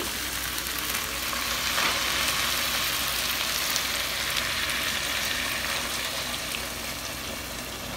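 Diced potatoes sizzling in a hot cast-iron Dutch oven as chicken broth is poured in from a carton, a steady hiss with no pauses.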